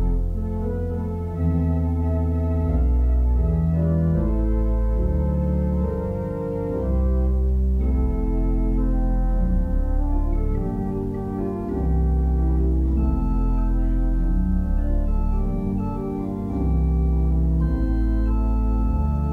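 Organ playing slow held chords over a deep pedal bass, the chords changing every second or two.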